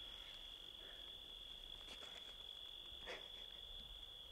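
Crickets trilling steadily in one high, unbroken tone, faint, with a brief soft rustle about three seconds in.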